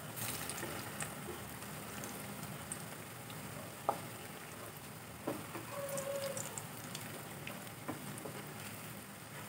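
Lauki kofta balls deep-frying in hot oil in a kadhai: a steady sizzle, with a few light knocks of a wooden spatula against the pan as they are turned.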